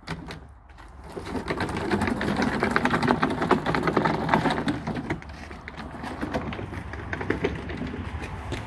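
A speaker cabinet wheeled on its casters, a fast clattering rattle loudest from about one to five seconds in, then quieter rolling.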